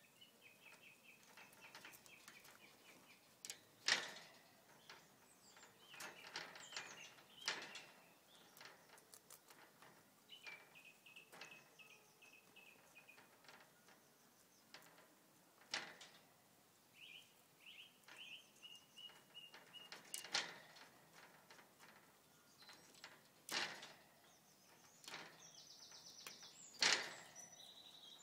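Garden birdsong: repeated runs of quick, high trilled notes. A handful of sharp clicks and snaps break in, the puppy's teeth working a broccoli stalk through the wire mesh of a rabbit run.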